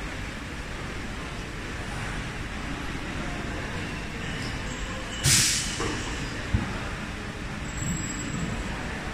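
Steady hum of mask-production machinery on a factory floor. About five seconds in comes a short, loud hiss, and a sharp click follows about a second later.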